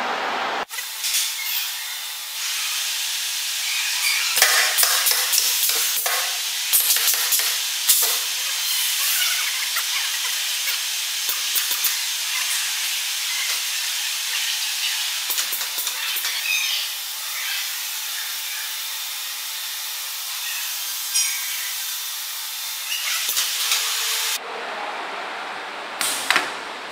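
Steady hissing workshop noise with scattered clicks and knocks and nothing deep in it; near the end it turns fuller and lower.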